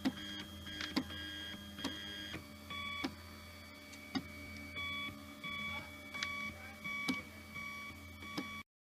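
Printrbot Jr. V2 3D printer running a print: its stepper motors make a steady whine whose pitch jumps between a few tones as the moves change, over a low hum, with a sharp tick every second or two. The sound cuts off abruptly near the end.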